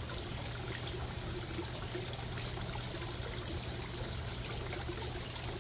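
Small garden-pond waterfall spilling steadily from a stone spillway into the pond, over a steady low hum.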